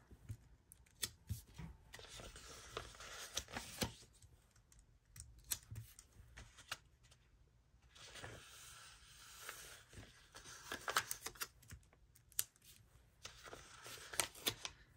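Paper sticker sheet being handled and box stickers peeled off and pressed onto a paper page: stretches of soft paper rustling with scattered light taps and clicks.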